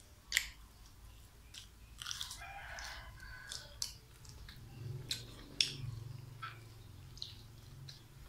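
Close-up eating sounds of a person chewing food by hand, with wet chewing, crunching and sharp mouth clicks and smacks scattered through. A rooster crows in the background about two seconds in.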